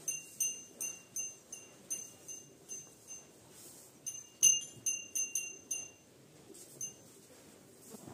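Small metal bell on a feeding cow's neck clinking in quick, irregular strikes as the animal's head moves over the fodder. The strikes are loudest about halfway through and die away near the end.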